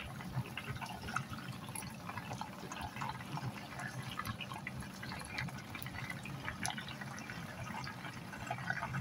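Breaded chicken pieces deep-frying in hot oil: a steady sizzle with a dense crackle of small pops.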